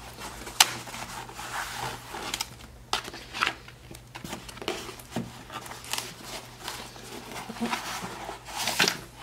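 Corrugated cardboard book mailer being opened by hand: irregular scrapes, rustles and clicks as the card flaps are folded back and a paperback book is slid out. A sharp click comes about half a second in.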